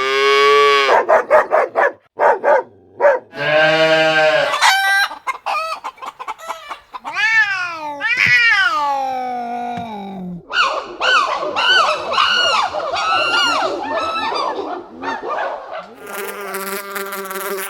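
A montage of animal and bird sound effects edited one after another. Several different calls and cries follow in quick succession, some sliding in pitch, with a stretch of many short repeated calls in the second half.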